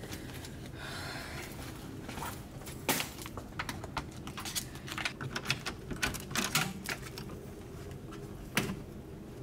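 Rummaging in a handbag, then a bunch of keys jangling and a card clicking and scraping at a door's lever-handle latch as someone tries to open a locked door: a scatter of sharp, irregular clicks over several seconds.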